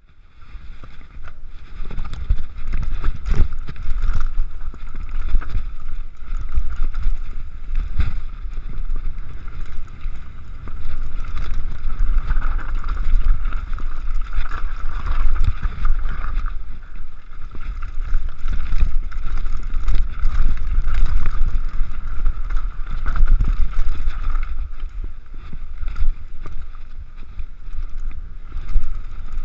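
Wind buffeting the mountain bike's on-board camera microphone, with the rumble and rattle of the bike rolling down a rough, rocky singletrack and frequent sharp knocks as it goes over rocks and bumps.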